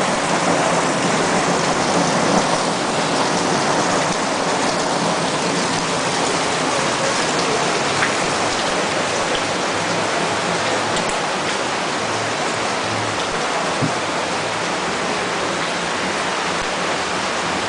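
Heavy rain pouring down steadily, with the odd louder drop hitting a surface.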